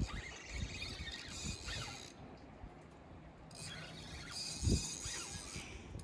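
Spinning reel cranked in two short spells while a hooked fish pulls against the rod, its gears and drag giving a mechanical whirring and clicking. A dull thump about three-quarters of the way through.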